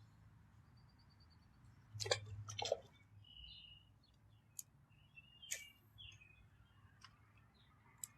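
Faint outdoor quiet with small birds chirping in short high calls, including a brief trill near the start. A few sharp clicks and knocks come about two seconds in, again shortly after, and later on.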